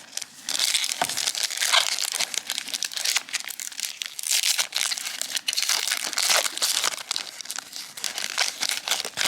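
Foil Pokémon booster pack wrapper being torn open and handled, a continuous crackling rustle.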